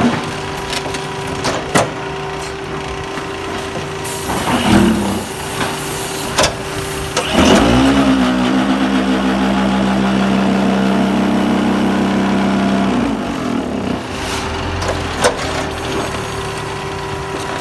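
Menegotti MBP 4.0 concrete paver block machine running through a moulding cycle: a steady mechanical hum with occasional sharp clanks. About halfway through, the vibrators that compact the concrete in the mould start up as a loud, steady drone, run for about five seconds, then stop.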